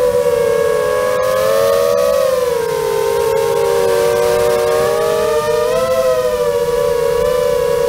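FPV quadcopter's brushless motors whining in flight, heard from the action camera on board. Several close tones drift up and down together as the throttle changes.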